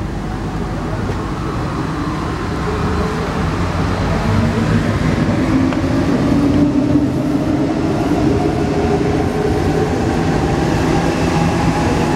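Alstom NS-16 metro train pulling away and gathering speed: the traction motors' whine rises steadily in pitch over the rumble of wheels on rail, growing slightly louder.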